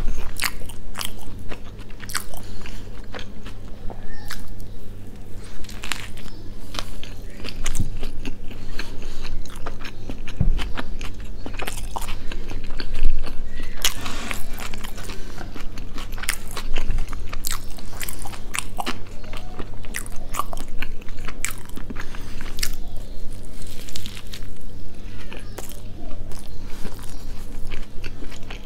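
Close-miked eating of a chicken burger: bites into the soft bun and filling, then steady wet chewing with frequent crunches and small mouth clicks.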